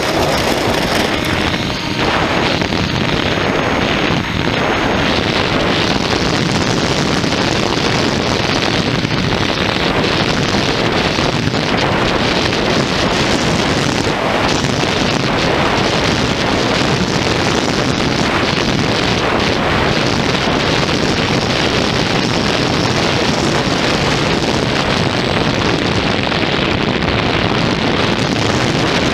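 Steady wind rush and buffeting on the microphone of a camera riding on an electric Sky Hunter RC plane, mixed with its motor and propeller, as the plane finishes its takeoff roll and flies at speed.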